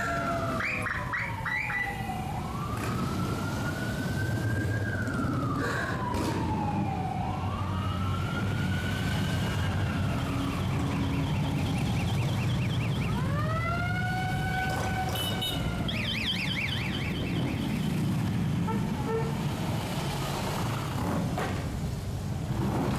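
A procession of motorcycles, mostly Harley-Davidson V-twin touring bikes, rumbling steadily past. Over the engines a siren wails up and down, switches twice to a fast warble in the middle, and stops after about two thirds of the way through.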